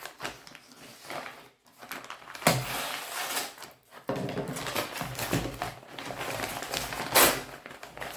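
Product packaging being handled: rustling and crinkling with a couple of sharper knocks, the loudest one near the end.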